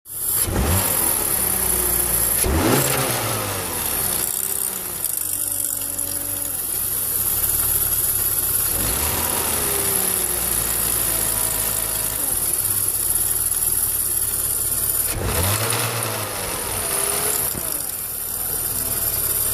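BMW E46 320i straight-six engine running at idle and revved briefly about four times, its pitch rising and falling back each time, with a steady high hiss over it. The car carries an odd engine noise whose cause the owner does not know.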